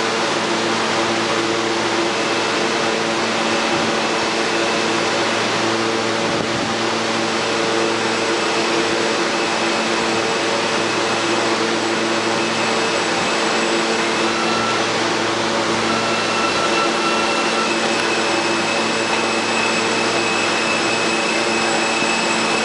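R160A-1 subway train slowly pulling into the station, making a steady hum and hiss with several faint steady whining tones. A higher whine comes in for a few seconds after the middle.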